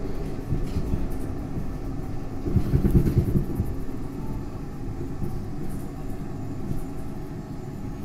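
Rumble of a SEPTA Market-Frankford Line Kawasaki M-4 elevated train, heard from inside the car as it runs along the el. It swells louder for about a second around three seconds in, then eases off steadily as the train slows toward the next station.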